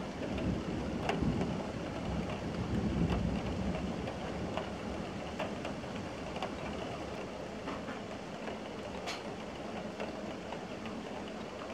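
Steady rain with scattered drops ticking close to the microphone, under a low rumble of thunder that fades away over the first few seconds.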